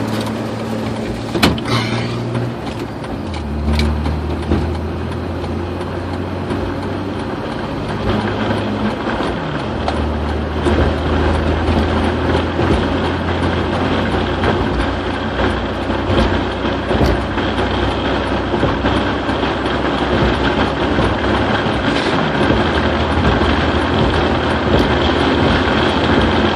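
Road noise inside a car at highway speed: steady tyre and wind hiss with a low engine drone that comes and goes, slowly growing louder.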